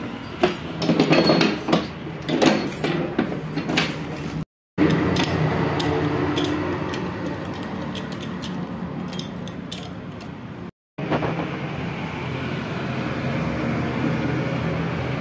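Metal clinking and rattling of hand tools and connecting-rod caps and bolts being fitted to a tractor engine's crankshaft, loudest in the first few seconds, over a steady low hum. The sound cuts out briefly twice.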